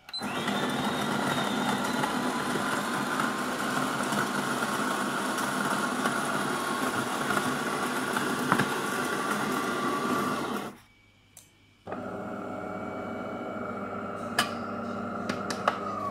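De'Longhi bean-to-cup espresso machine's built-in grinder grinding coffee beans for about ten seconds after the espresso button is pressed, then stopping. After a short pause the machine starts a second, steadier hum about twelve seconds in, which stops at the end.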